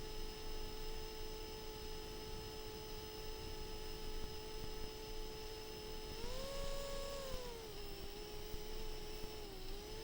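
Steady whine of a 6-inch FPV quadcopter's motors as captured on the FPV goggles' DVR recording, thin and hissy. The pitch rises about six seconds in as the throttle is pushed, then falls back near eight seconds, with a brief dip near the end.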